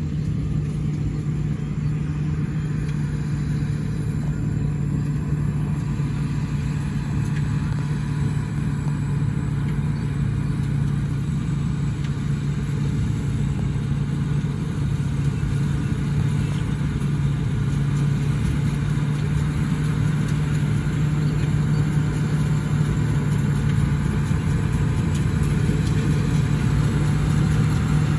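Combine harvester engine running steadily with a constant low hum, getting slightly louder toward the end.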